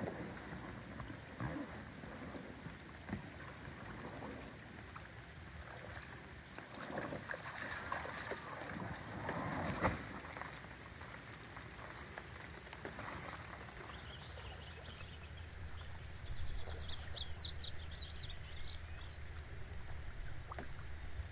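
Rain falling on a lake, with scattered splashes as a person climbs out of an inflatable packraft in shallow water. About three quarters through, the rain noise gives way to a quieter lakeside, with a short burst of rapid bird chirps lasting about two seconds.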